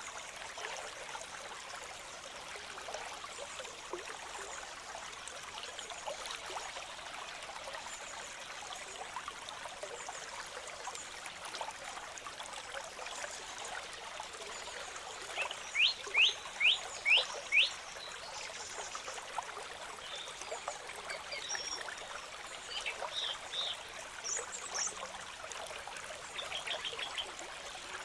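A small stream trickling and splashing steadily. About two-thirds of the way through, a quick run of six sharp downward chirps sounds over it, followed by scattered fainter chirps.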